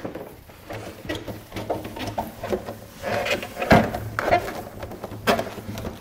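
Rubber door gasket of an Atlant refrigerator being pressed by hand into the groove in the door: a run of small clicks and rubbing sounds, with a louder knock a little past halfway and another near the end.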